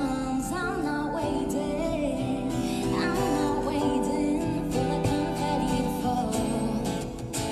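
Pop song with a sung vocal line over sustained instrumental accompaniment.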